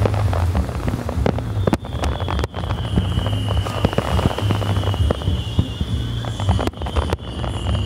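Fireworks going off in a rapid string of sharp bangs and crackles, over festival music from loudspeakers with a heavy bass.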